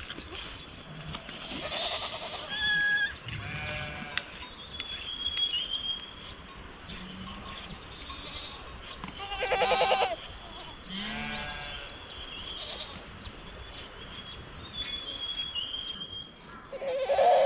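A herded flock bleating: several separate wavering, quivering bleats, about five in all, the loudest about ten seconds in and another right at the end.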